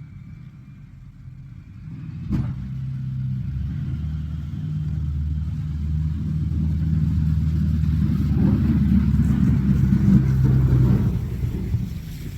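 Pickup plow truck's engine working under load while pushing snow. It picks up about two seconds in with a sharp knock, runs louder and steady for several seconds, then eases off near the end.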